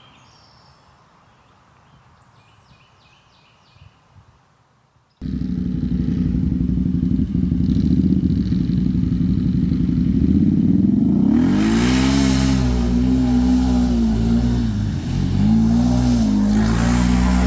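After a few quiet seconds with faint clicks, a Can-Am Maverick side-by-side's engine comes in suddenly and loud, running and then revving, its pitch rising and falling several times.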